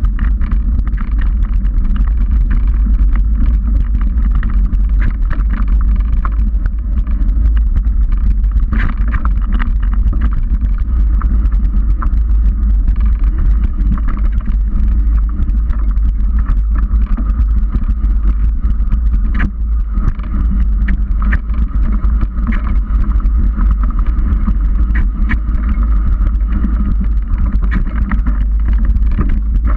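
Mountain bike riding over a dirt forest trail, heard through a bike-mounted GoPro: a loud, constant low rumble of wind and trail vibration, with scattered knocks and rattles as the tyres go over rocks.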